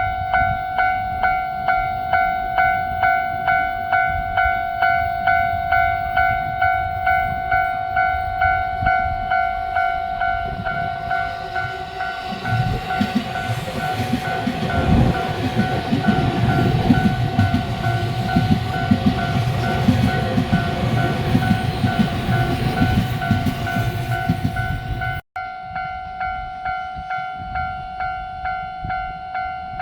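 Japanese level-crossing warning bell ringing steadily, a clanging tone about one and a half times a second. About 12 seconds in, a train passes over the crossing, its wheels clattering over the rail joints, until the sound cuts out for an instant near the end and the bell carries on alone.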